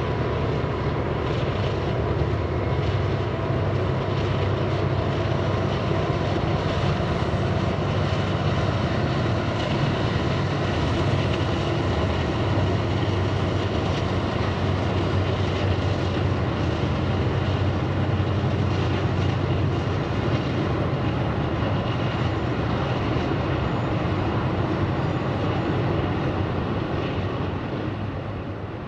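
Steady drone of the filming aircraft's engine, fading out near the end.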